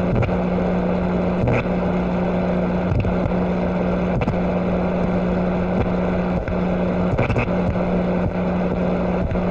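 A motor running steadily: a constant low hum over a rushing noise, the hum dropping out for a moment several times.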